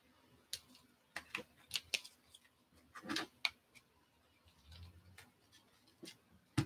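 Hard plastic trading-card cases clicking and clacking against each other as they are handled and stacked: a series of light, irregular taps with a short scrape about three seconds in.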